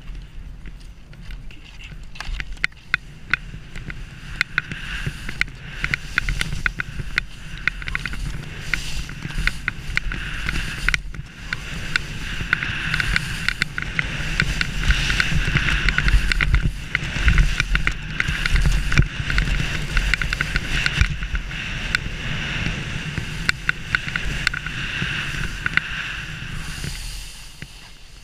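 Skis sliding over dry grass and then over soft spring snow: a scraping hiss full of crackling ticks that grows louder and steadier about halfway through, with wind rumbling on the GoPro's microphone. It dies down near the end as the skier slows to a stop.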